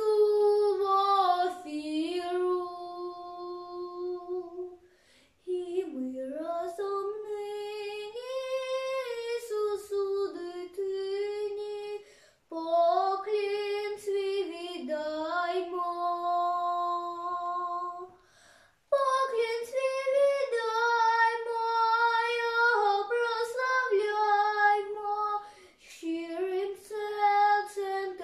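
A young girl sings a Ukrainian folk song solo and unaccompanied, holding long notes in phrases a few seconds long with short pauses for breath between them.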